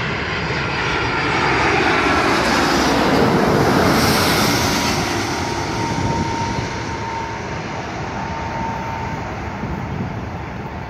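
Airbus A330 jet airliner on final approach, flying past low. The rush of its engines swells to its loudest a few seconds in, with a whine that drops in pitch as it passes, then eases off as it moves away.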